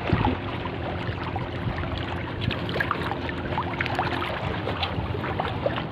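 Small choppy waves lapping and splashing in shallow seawater, with scattered small ticks and a low steady hum for the first four seconds or so.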